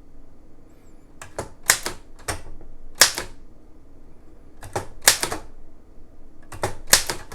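Oliver typewriter keys being struck in short groups of two or three, each a sharp clack of the typebar on the platen, about ten strikes in all. These are test characters typed to check the alignment of the capitals and figures after an adjustment.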